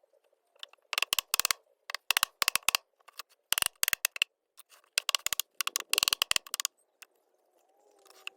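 Hammer knocking nails into wooden boards: quick runs of several sharp strikes, with short pauses between the runs.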